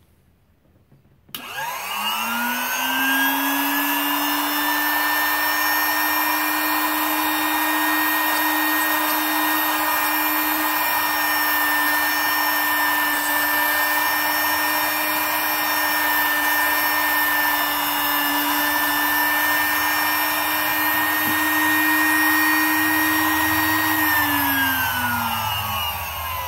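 Dumore Series 16 sensitive drill press's electric motor switched on about a second in, its whine rising as it spins up, then running steadily while it cross-drills a brass rod. Near the end it is switched off and the whine falls as the spindle spins down.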